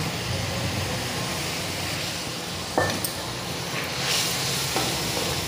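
Wet spice paste sizzling in a kadai as it is stirred with a wooden spatula, a steady hiss that grows a little stronger near the end, with one sharp knock of the spatula against the pan about halfway through.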